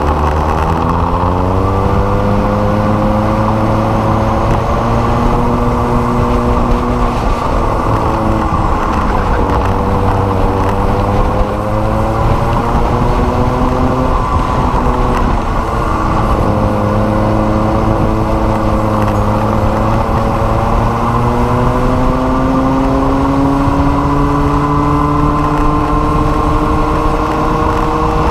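Racing go-kart engine at full race pace, its pitch climbing along the straights and dropping back into the corners several times, with wind and tyre noise underneath.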